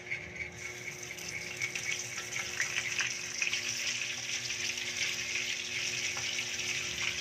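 Breadcrumb-coated chicken pieces frying in hot oil in a wok, a steady crackling sizzle that grows louder about half a second in as the fresh batch settles into the oil.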